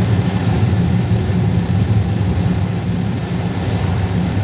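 Steady low rumble of a car's engine and tyres on a wet road, heard from inside the cabin, under an even hiss of heavy rain on the car.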